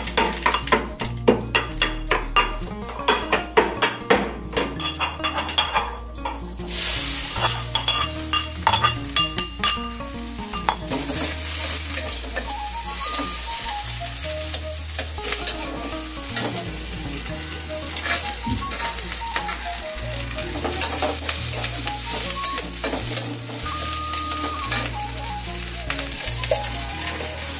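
Food frying in hot oil in a pan, with a spatula stirring, scraping and clinking against the pan through the first ten seconds. After that comes a steady sizzle.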